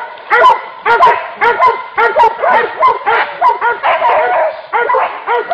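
Several dogs barking and yelping excitedly while confronting a pig, about three to four sharp barks a second, overlapping one another without a break.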